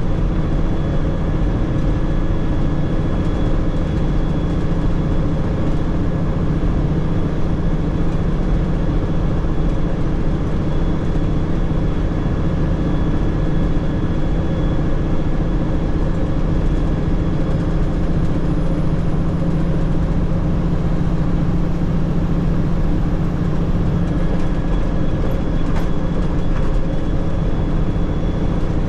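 Tanker truck driving, heard from inside the cab: steady engine and road noise with an even low hum.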